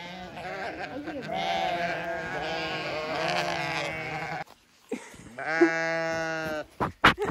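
A flock of sheep bleating, many overlapping calls as they run up. After a short lull comes one long, steady bleat, then a few sharp knocks near the end.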